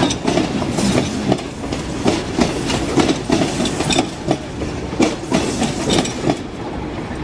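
Electric multiple-unit commuter train passing close by, its wheels clattering over rail joints and points in a run of irregular clacks over a steady rumble. The clacks thin out near the end as the last car goes by.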